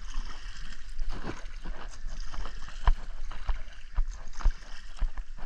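Irregular knocks and bumps against a kayak, several a second and unevenly spaced, over a faint steady background.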